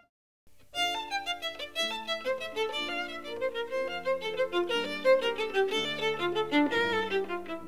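Violin music, with quick running notes over held lower notes, starting about half a second in after a brief silence.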